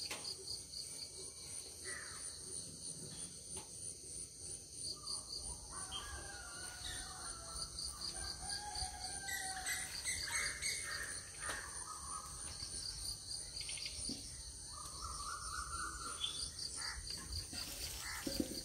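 Outdoor rural ambience: a steady chorus of insects trilling in high, evenly pulsing tones, with birds chirping and calling on and off over it.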